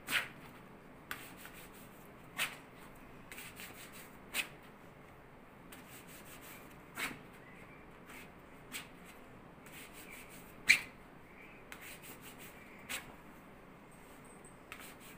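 A hand rubbing a waxing strip down over hot wax on a forearm: a soft scratchy rubbing, broken by several short, sharp sounds, the loudest about ten and a half seconds in.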